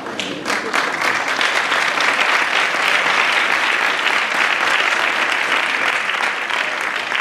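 Theatre audience applauding: many hands clapping together, swelling about half a second in and then holding steady.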